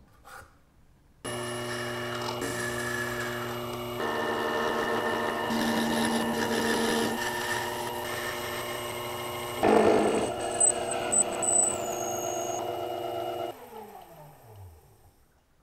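Small metal lathe running with a steady motor whine while a tiny brass part is turned, louder cutting noise coming in around ten seconds in. The sound starts abruptly about a second in, and near the end the lathe winds down with a falling whine.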